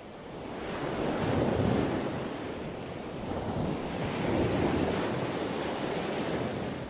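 A rushing, surf-like noise that swells about a second and a half in, eases, swells again around the middle, and ebbs toward the end.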